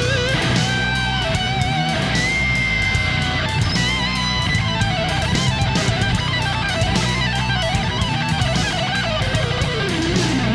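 Background rock music led by an electric guitar whose held notes waver and bend.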